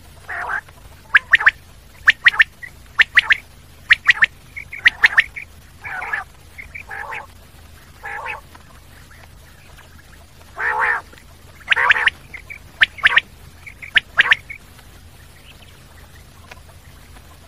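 Common quail calling: short, sharp, high notes in quick groups of two or three, mixed with a few longer, rougher, lower calls. The calls stop about fourteen and a half seconds in, leaving a faint steady hum.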